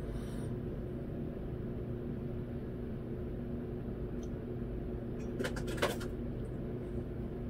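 Steady low machine hum of room noise. A short cluster of rustling clicks about three-quarters of the way through comes as a ball is pulled out of the mouth.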